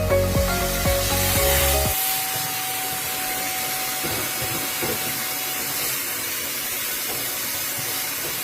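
Background music that ends about two seconds in, then a vacuum cleaner running steadily through a long dryer-vent hose attachment: a steady rushing hiss of air with a faint steady whine as it sucks lint out of a dryer vent.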